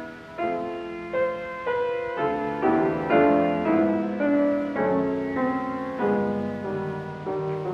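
Piano playing a slow, classical passage of chords, a new chord struck about every half second and left to ring.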